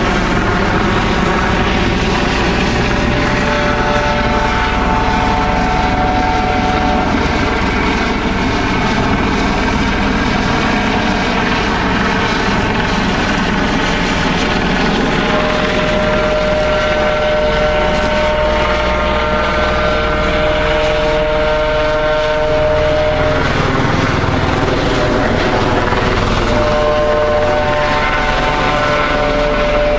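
Police helicopter circling overhead: a loud, steady rotor and engine drone whose tones slowly shift in pitch as it moves.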